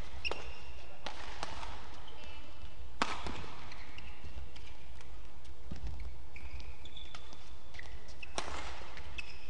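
Badminton rackets striking a shuttlecock in a doubles rally: several sharp hits a second or more apart, the loudest about three seconds in, with short high squeaks between them over a steady low hall rumble.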